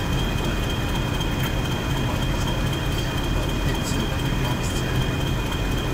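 Diesel train running steadily: an even low engine hum with two steady high-pitched whines above it.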